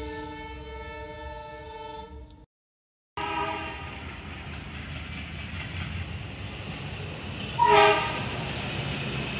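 Thomas the Tank Engine toy train playing its electronic whistle sound, one steady held tone that cuts off abruptly about two and a half seconds in. After a short gap of silence its sound comes back as a steady hiss with a low hum, and a short, loud whistle toot sounds near the end.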